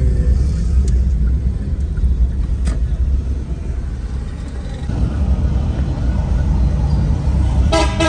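Steady low rumble of a vehicle driving through city traffic, with a car horn honking briefly near the end.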